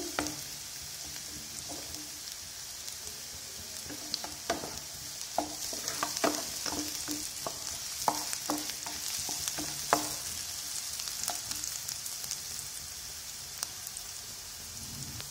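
Finely chopped onion sizzling steadily in a little hot oil in a frying pan: the onion is being lightly fried, not browned. From about four to eleven seconds in, a run of sharp clicks and scrapes comes from a utensil stirring the onion against the pan.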